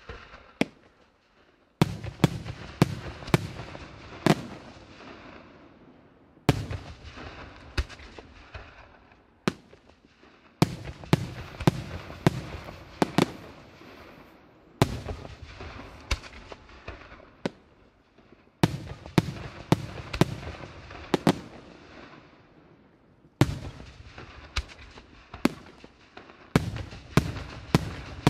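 Aerial firework shells bursting in quick volleys: several sharp bangs within a second or two, each volley followed by a rolling echo that fades. The volleys repeat about every four to five seconds.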